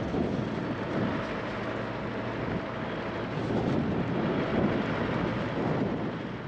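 Mitsubishi Pajero on the move, a steady rumble of engine and tyre noise with a faint engine hum.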